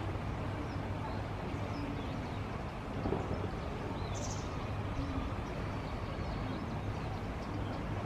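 Steady outdoor background noise with a low hum, and a brief high chirp about four seconds in.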